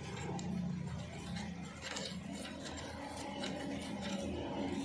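Combination spanner working a bolt on a Mahindra 265 DI tractor's sheet-metal panel: light metallic clicks and scraping as the wrench is turned and refitted, over a low steady hum.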